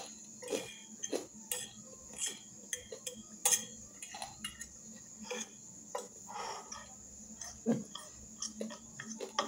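Metal fork clinking and scraping against a glass bowl in irregular short taps, several a second at times, with chewing between.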